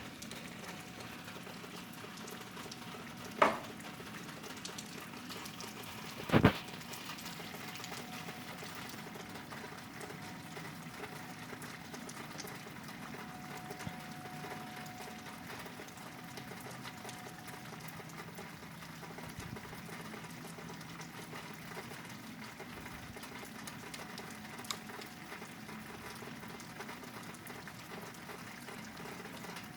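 Steady rain falling, an even patter and hiss, with two sharp taps about three and six seconds in.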